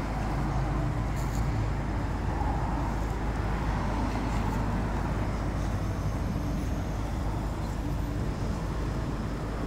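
Steady outdoor background noise: a continuous low rumble with a hiss over it, even throughout, with no distinct calls or knocks standing out.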